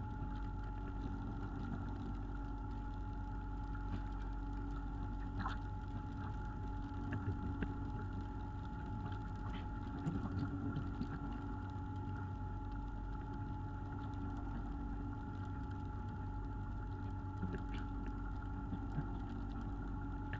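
Boat engine running steadily, a constant drone with a low rumble and a few light knocks now and then.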